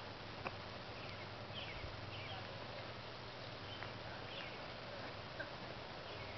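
Outdoor ambience: a steady background hiss with scattered short, high chirps from small birds, and a couple of faint clicks.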